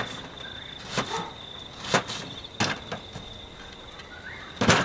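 Kitchen knife slicing an onion on a plastic cutting board: five irregular knocks of the blade on the board, the loudest near the end. A steady, pulsing high insect trill runs underneath.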